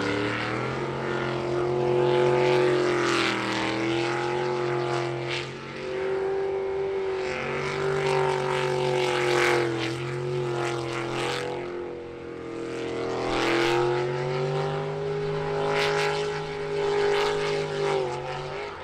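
Jet sprint boat's engine running hard and loud, its pitch climbing, dropping twice and climbing again as it works through the course, then stopping abruptly near the end.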